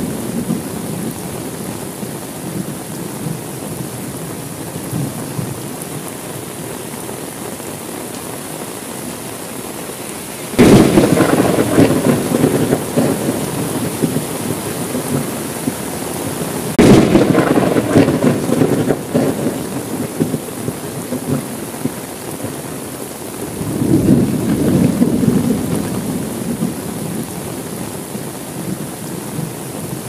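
Steady rain with thunder. Two sharp thunderclaps break in suddenly, about a third and just over half of the way through, each rumbling away over several seconds. A softer roll of thunder swells and fades near the end.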